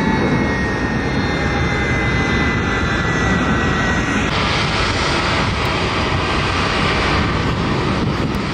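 Boeing 737-900ER's CFM56 turbofans running as the jet heads out: a steady, loud jet rush with a thin whine that dips slightly in pitch. About four seconds in, the sound turns hissier.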